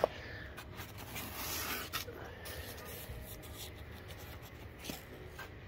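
Foam packing sheet being lifted out of a case, rubbing and scraping against the foam and case walls, with a sharp knock right at the start and a few light knocks later.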